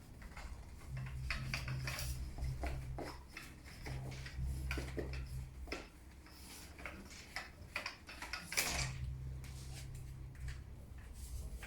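Beach umbrella being handled and opened: scattered clicks, knocks and rattles from its frame and fittings, with one louder knock about three-quarters of the way through.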